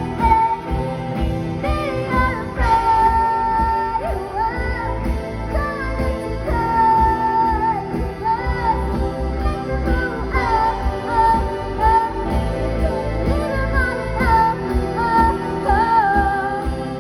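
A young girl singing lead vocals over a live rock band of drums, electric guitars and keyboards playing a pop song with a steady beat.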